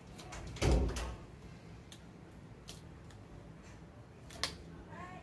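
Hands working on a hockey skate's toe cap: one louder knock just under a second in, then a few light clicks.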